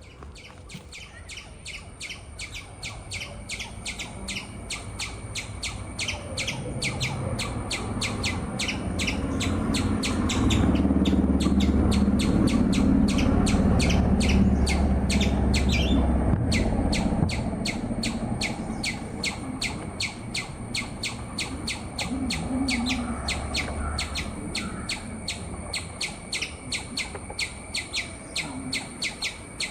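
High chirps repeated rapidly and evenly, several a second, without a break. A low rumble swells up about ten seconds in and fades again after about seventeen seconds.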